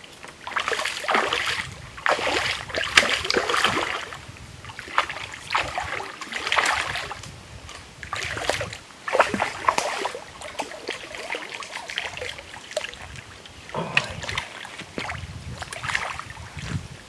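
Water splashing in irregular bursts a few seconds apart: a hooked tench thrashing at the surface as it is played in and landed.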